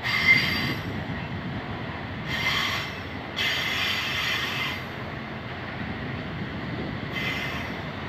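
Freight train wagons rolling past on a curve: a steady rumble of wheels on rail, with high-pitched wheel squeal breaking out in four short bursts, loudest right at the start and longest about halfway through.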